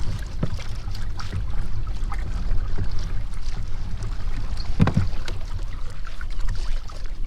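Old Town Sportsman 106 PDL pedal-drive kayak under way, with a steady low rumble, scattered light clicks and a single louder knock about five seconds in.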